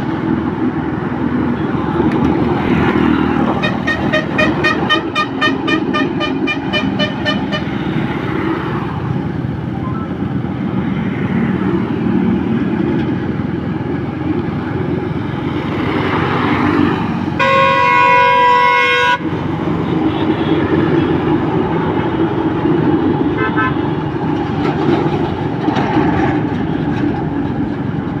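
Steady engine and road noise from a vehicle driving on a highway. A fast string of short horn beeps, about three a second, sounds for about four seconds early in the drive. A single steady horn blast of under two seconds comes about seventeen seconds in.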